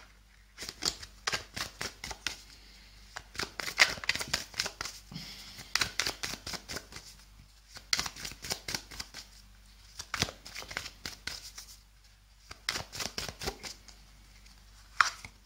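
A tarot deck being shuffled by hand: bursts of rapid card-edge clicks and slaps, each lasting a second or two, with short pauses in between.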